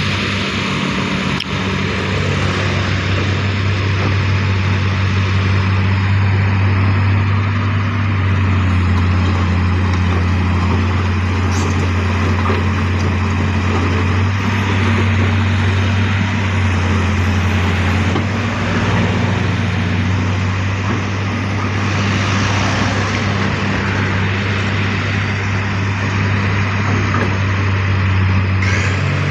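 Heavy diesel engine running steadily with a deep, even drone and a rushing noise over it.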